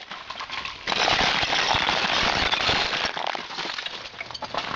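Dense crackling and crunching of ice, many small cracks running together, loudest from about one to three seconds in.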